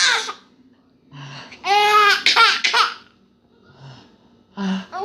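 A baby laughing: a burst of high-pitched laughs about two seconds in, with short, fainter sounds before and after.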